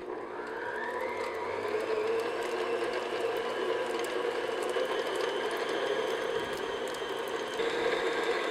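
Electric stand mixer's motor starting up, its whine rising over the first second, then running steadily as the paddle beats softened butter in a stainless steel bowl. The pitch steps up slightly near the end.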